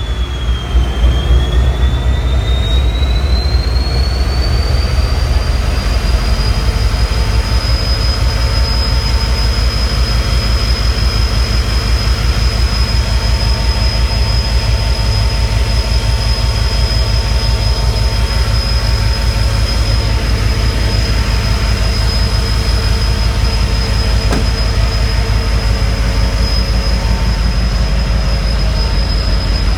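EMD SD70M locomotive's 16-cylinder 710 two-stroke diesel running after startup, a low, even engine beat under a loud turbocharger whine. The whine rises in pitch over the first several seconds, then holds steady as the engine settles.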